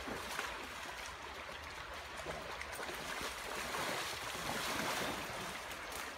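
Water splashing and sloshing as a dog swims across a creek hauling a long branch, over the steady rush of the stream; the splashing is a little louder in the middle.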